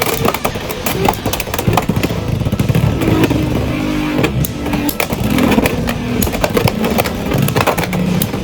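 Beyblade X spinning tops, Cobalt Dragoon and Tusk Mammoth, battling in a plastic stadium: a steady whirring rumble broken by frequent sharp clicks and knocks as the tops collide and scrape.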